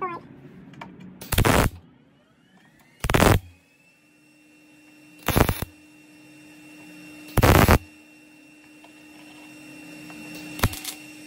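MIG welder laying short tack welds on a sheet-metal patch seam: four brief bursts of welding about two seconds apart, each under half a second. A single sharp click comes near the end, with a faint steady hum in the gaps.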